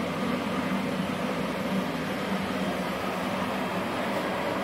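Steady whirring hum and hiss of running welding-shop equipment, with no arc being struck.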